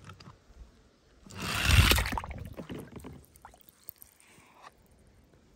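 A small die-cast toy car splashes into water. One splash comes about a second and a half in and fades over a second or so.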